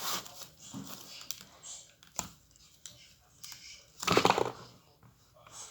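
Light clicks and taps of hands handling plasticine and sculpting tools on a tabletop, with a louder rustling burst about four seconds in.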